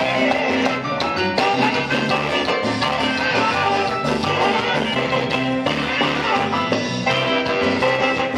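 A band playing huehue carnival dance music: a lively Latin dance tune with a steady, even bass beat.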